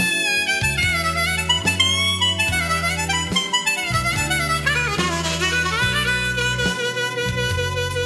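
Diatonic harmonica in Nature Minor tuning playing a slow blues melody in B minor, with bent notes sliding in pitch, over low held bass notes that change every second or so.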